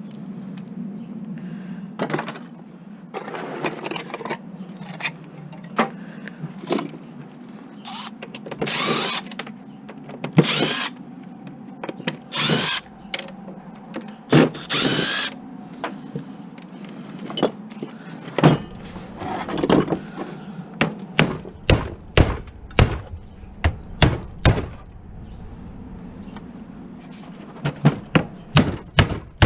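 Scrap metal being worked apart with tools: many sharp knocks and clanks, coming faster in the second half, with a few longer scraping or rasping bursts of about a second in the middle.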